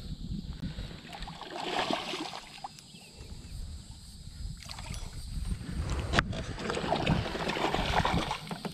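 A hooked largemouth bass thrashing and splashing at the water's surface beside a kayak, with water sloshing; the splashing builds up near the end. A single sharp click sounds about six seconds in.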